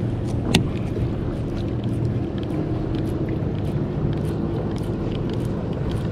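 Boat motor running steadily, with wind buffeting the microphone and a few faint clicks.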